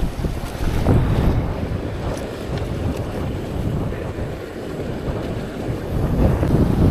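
Strong cold wind buffeting the microphone: a dense, gusting low rumble that swells again near the end.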